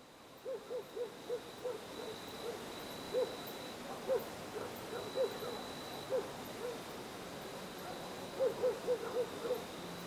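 Distant dogs barking in short runs of quick barks, with single barks between, over a faint steady high insect trill and outdoor hiss.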